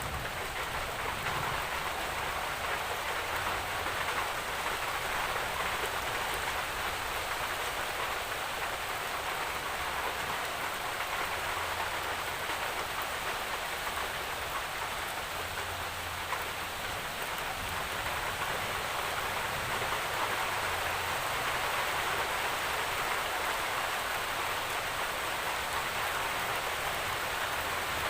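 Steady rainfall: an even hiss of rain on surfaces.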